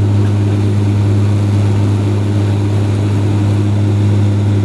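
Bombardier Q400 Dash 8's six-bladed turboprop propellers droning steadily: a deep, even hum with overtones, unchanging in pitch.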